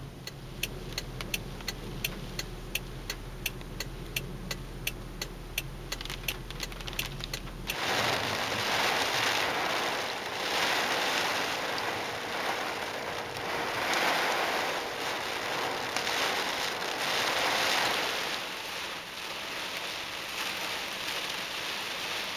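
A low hum with about three sharp ticks a second, then abruptly, about eight seconds in, a loud rush of heavy rain and gusting wind that swells and eases in waves.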